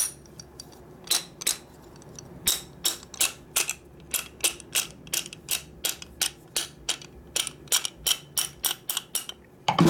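Hammer striking a steel drift to drive the wrist pin out of a Harley-Davidson Knucklehead piston: a long run of sharp metallic taps, about three a second, starting about a second in.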